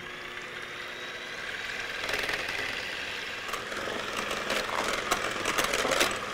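KitchenAid Professional 9 electric hand mixer running, its beaters whipping heavy cream in a ceramic bowl, the cream close to holding its form. The whir grows louder and rougher about two seconds in, with a scatter of sharp clicks in the last couple of seconds.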